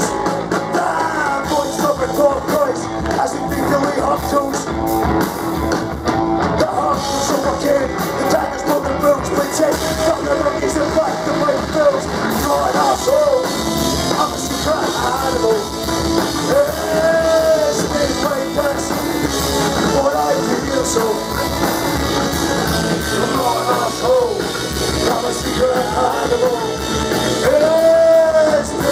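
Live rock band playing loudly: electric guitar and drums, with a male singer's vocals into a microphone.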